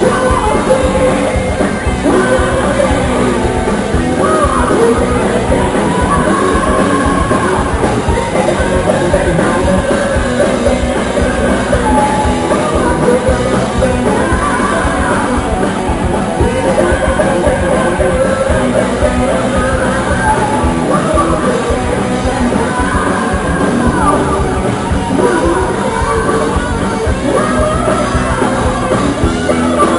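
Live metal band playing electric guitars and a drum kit, with a singer's vocal over the music.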